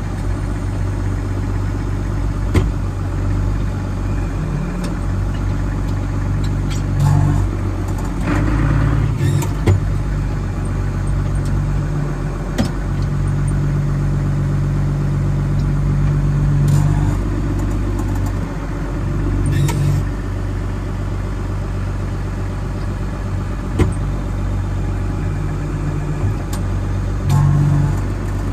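Ford TW5 tractor's turbocharged six-cylinder diesel engine running steadily, heard from inside the cab, its drone swelling under load a few times. A few short sharp knocks and rattles come through over it.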